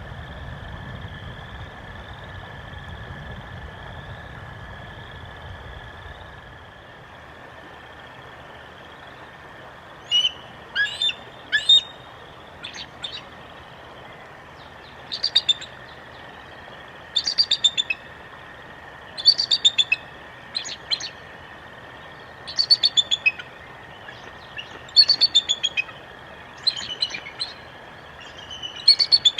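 Songbird singing, short phrases of several quick chirps repeated about every two seconds, over a faint steady background tone. A low rumble at the start fades out about six seconds in, before the singing begins.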